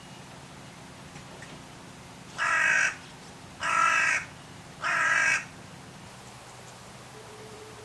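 Carrion crow cawing three times, hoarse calls about a second apart.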